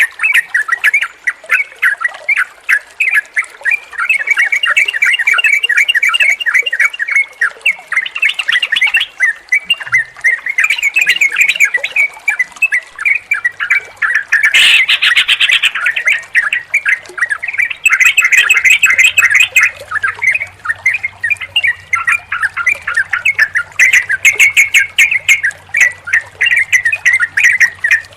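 Yellow-vented bulbuls chattering and calling without pause, several birds overlapping in rapid bubbling phrases. A faint low hum runs under the calls from about halfway through.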